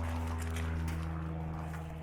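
A steady low mechanical hum with even overtones, holding constant throughout.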